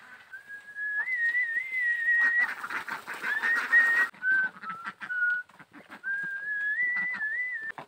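A person whistling a tune: one clear note stepping up and down in pitch, in short phrases with brief breaks. Rustling and crackling join in from about two to four seconds in.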